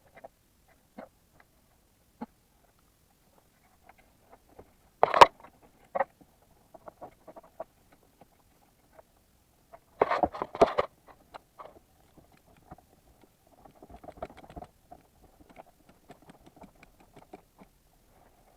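Scattered light clicks and rattles of hand tools and parts being handled during engine-bay work, with sharper knocks about five seconds and ten seconds in.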